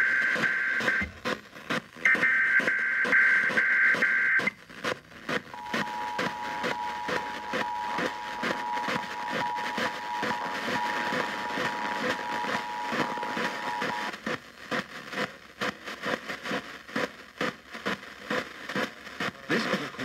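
Emergency Alert System tones from an FM radio's speaker: the end of one burst of warbling SAME header data, then a second burst from about 2 to 4.5 seconds in, followed by the steady two-tone attention signal for about eight seconds. Reception static hisses under it all and is left alone after the attention signal cuts off.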